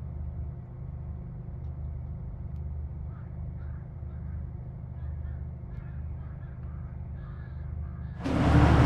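Steady, muffled low hum with a faint rise and fall of short calls over it. About eight seconds in, a much louder, fuller sound cuts in suddenly.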